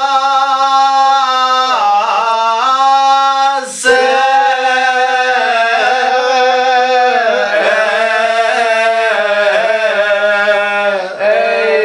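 A man singing a Kashmiri Muharram devotional recitation solo and unaccompanied, in long held notes that bend up and down, with a short breath about four seconds in.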